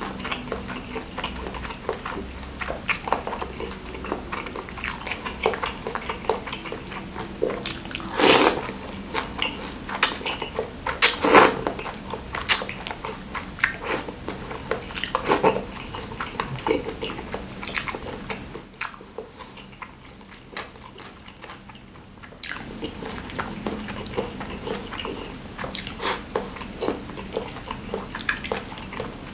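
Close-up eating sounds: chewing and mouth noises of a man eating spicy chicken noodles with meatballs. There are many short sounds, the loudest about eight and eleven seconds in, and a quieter spell about two-thirds of the way through.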